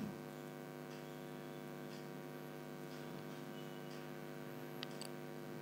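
Quiet, steady electrical hum with a stack of overtones; a couple of soft ticks near the end.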